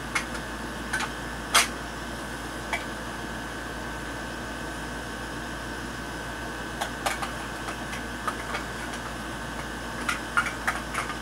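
Steady room noise, a hiss and low hum with a faint constant high tone, like a fan or air conditioner running. A few short clicks and taps are scattered through it, the sharpest about a second and a half in and several close together near the end.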